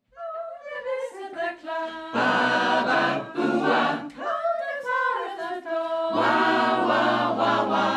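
Mixed choir singing a cappella, with the higher voices alone at first and the lower voices joining about two seconds in.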